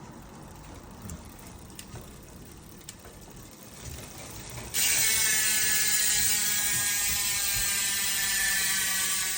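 Road bike's rear freehub ratcheting as the wheel is spun: a few faint clicks, then about five seconds in a sudden loud, steady buzz of the pawls, its pitch sinking slightly as the wheel slows.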